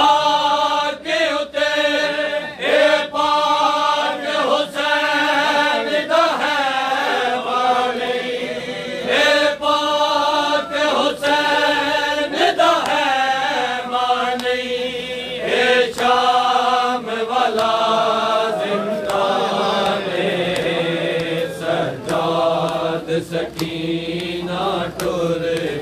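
A group of men chanting a noha, a mourning lament, together, with a steady beat of hand slaps on chests (matam) from the crowd.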